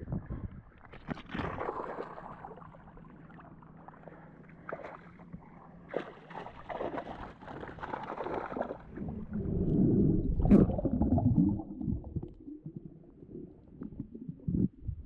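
Shallow water splashing and sloshing as a speared fish is handled into a net at the surface, irregular and loudest about two-thirds of the way through, with a sharp click in the middle of that loudest stretch.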